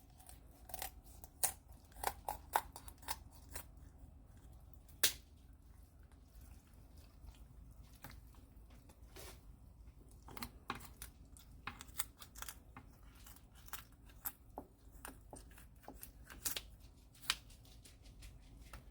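Kitchen shears snipping along a chicken's backbone, a long run of irregular snips and crunches as the blades cut through rib bones, one sharper crack about five seconds in.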